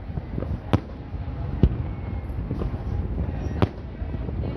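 Fireworks bursting overhead: three sharp bangs, about a second in, near the middle and about three-quarters of the way through, over a continuous low rumble.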